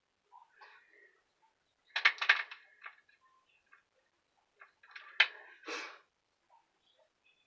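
Small hard objects clicking and tapping: a makeup brush and palette being handled on a bathroom counter. There is a quick cluster of clicks about two seconds in, and another run of taps with a sharp click about five seconds in.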